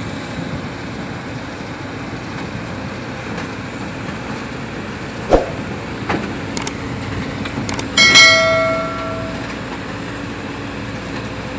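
JCB 140 tracked excavator's diesel engine running steadily as the boom works the bucket down off the truck, with a few sharp metal knocks and, about eight seconds in, a loud metallic clang that rings on for over a second.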